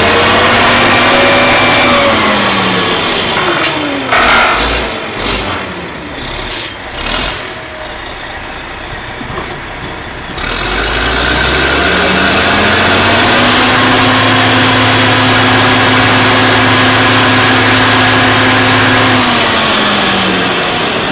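Rig engine revving up, running at high speed and dropping back twice, as on hoisting. In the quieter gap between there are a few sharp clanks.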